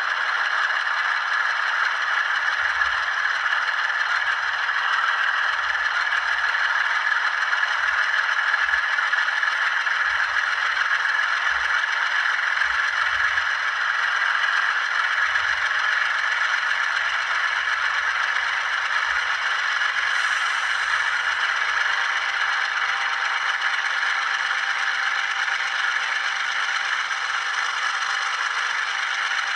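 Model diesel locomotive's sound decoder playing a prime-mover engine sound through a small speaker, running steadily, thin and rattly with almost no bass.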